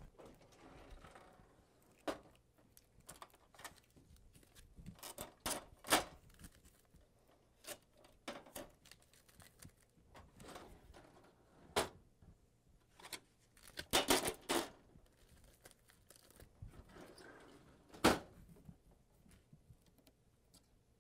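Packing tape being peeled off the plastic panels and paper tray of a new HP laser printer: short tearing strips, crinkling of the removed tape and sharp plastic clicks, at irregular intervals, with the longest run of tearing about two-thirds of the way through.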